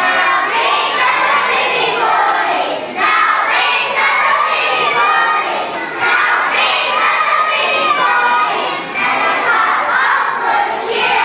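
A group of young children singing together in held notes and phrases, loud and somewhat shouted.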